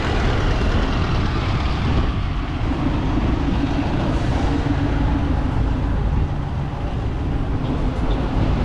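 City street traffic with buses driving past close by; a bus engine's drone stands out for a few seconds in the middle over a steady low rumble.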